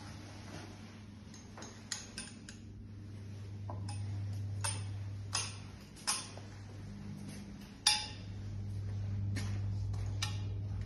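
Footsteps tapping on a hard floor: light, irregular clicks about once a second, the loudest near the end, over a low steady hum.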